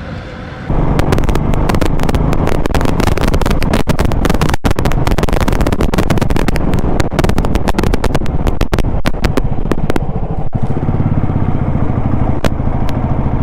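Motorcycle riding: the engine runs steadily under loud, crackling wind buffeting on the camera microphone, which cuts in suddenly about a second in after a quieter stretch of traffic hum.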